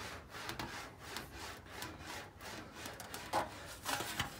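Sheet aluminium being rolled back and forth through an English wheel, a rasping swish with each pass, about two a second, while the panel is shaped into a compound curve. A sharper knock stands out about three and a half seconds in.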